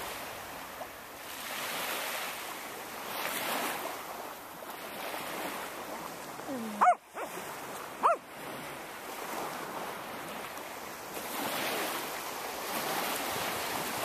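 Surf washing in and out on the shore, swelling every few seconds, with wind on the microphone. Midway, two short, loud dog barks about a second and a half apart.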